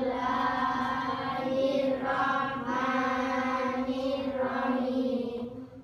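Schoolchildren chanting a Muslim prayer together in unison, in long held, sing-song phrases.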